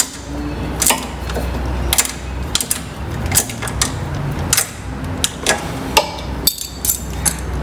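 Irregular metallic clicks and taps of a spanner working the water pump's mounting bolt on a go-kart, as the bolt is tightened to lock the pump in place and hold tension on its drive belts.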